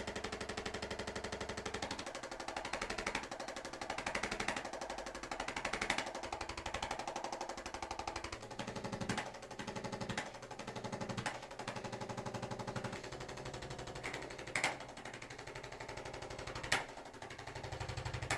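Rapid, steady mechanical pulsing, like a motorized percussion adjusting or massage tool, with a few sharp clicks in the second half.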